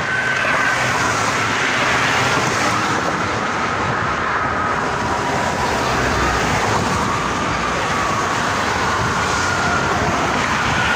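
Steady traffic noise of vehicles passing on a highway, with faint steady tones in the background that slowly drift lower in pitch.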